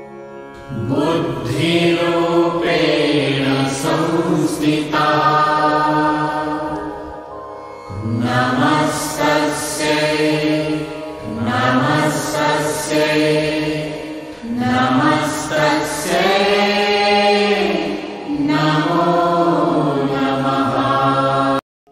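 A Sanskrit devotional mantra sung as a melodic chant with musical backing. It comes in long held phrases of a few seconds each, with short breaks between them, and cuts off suddenly near the end.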